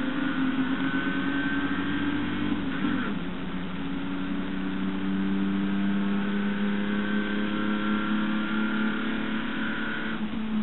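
Holden HQ race car's straight-six engine running hard at racing speed, heard from on board. The engine note breaks briefly about three seconds in and again near the end, then holds high.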